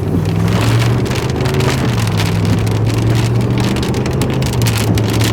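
Vehicle engine running with a steady low hum, while rain strikes the car's body and glass as many irregular ticks.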